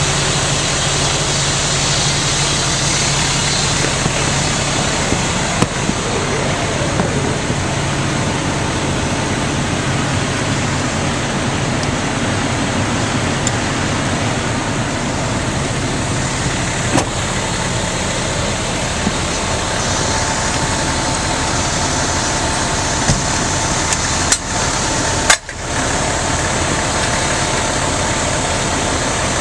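Fire engine's engine running steadily, with a few brief knocks; a thin steady whine joins about twenty seconds in.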